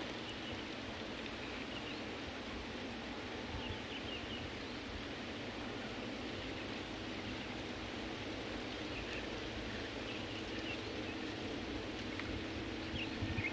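Insects trilling steadily at a high pitch, an unbroken pulsing chorus over a faint background hiss.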